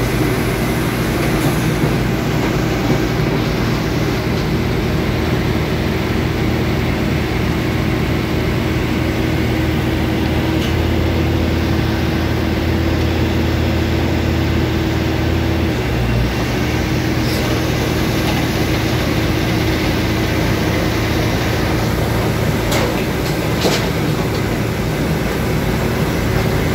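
Diesel engine of a self-loading grab lorry running steadily while it powers the hydraulic crane and grab bucket loading soil. The engine note shifts about a third of the way in and again just past halfway. A few sharp knocks come near the end.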